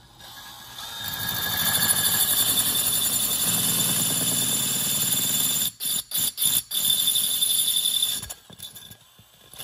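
Cordless DeWalt drill spinning a glass-and-tile arrowhead bit through a ceramic tequila bottle, a high grinding squeal as it finishes off a hole that has already broken through. About two-thirds of the way in it stops and starts in several quick bursts, runs again for about a second, then winds down near the end.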